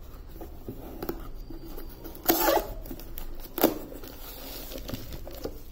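Cardboard shipping box being opened by hand: the taped top flaps pulled and torn apart, with two loud tearing rasps about two and a half and three and a half seconds in, among softer cardboard scrapes and rustles.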